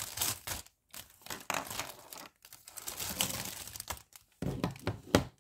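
Clear plastic bag crinkling in irregular bursts with short pauses as pieces are pulled out of it, then a louder clatter near the end as hard white plastic frame tubes are handled.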